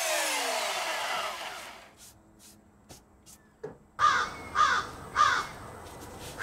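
Electric belt sander winding down after being switched off, its pitch falling over about two seconds. Then, about four seconds in, a bird gives three loud harsh calls about half a second apart.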